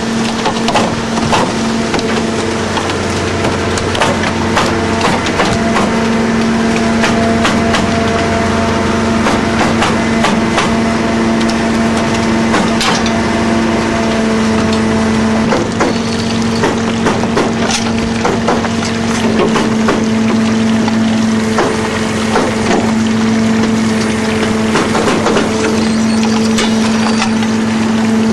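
Steady machinery drone from the harvest boat's engine and crane hydraulics, with frequent irregular knocks and slaps as salmon are dumped from a brail net onto a sorting table and handled.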